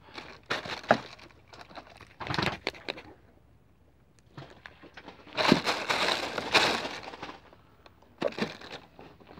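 Close-up crackling and rustling handling noise as hands work a small fish off a fishing hook. It comes in irregular bursts, the longest and loudest just past the middle.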